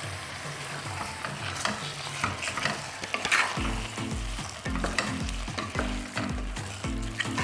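Raw beef pieces sizzling in hot coconut oil with sautéed onion and tomato in a pressure cooker, being stirred with a spatula that clicks and scrapes against the pot.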